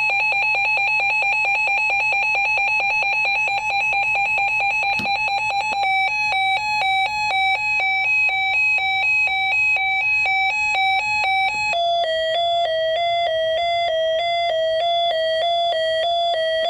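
Reecom R-1650 weather radio sounding its test alarms: a rapidly pulsing electronic tone for the warning alert, switching about six seconds in to a slower pattern alternating between two pitches, and near twelve seconds to a lower-pitched alternating pattern as it steps through the alert types.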